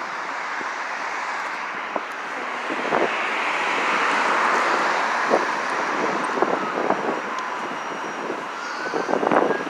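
Vehicle or traffic noise: a steady rush that swells about midway and eases off, with scattered light clicks.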